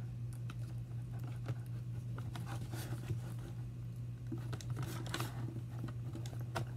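Hands working at a toy's cardboard-and-plastic packaging: scattered clicks, scrapes and short crinkling, tearing rustles, the largest about three and five seconds in, over a steady low hum.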